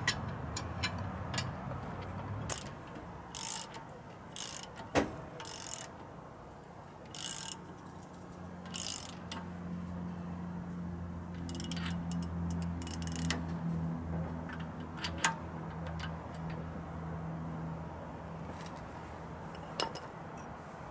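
Hand ratchet wrench clicking in short bursts, with scattered metal clinks, while a nut is worked on a Dana 44 front axle. A low steady hum comes in about eight seconds in and fades out a few seconds before the end.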